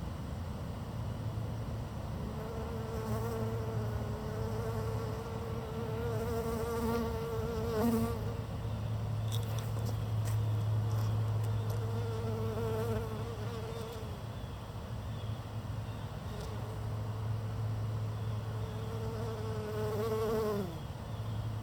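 A bee buzzing close to the microphone in three spells, its pitch wavering as it hovers and moves around, then dropping as it flies off near the end. A steady low hum runs underneath.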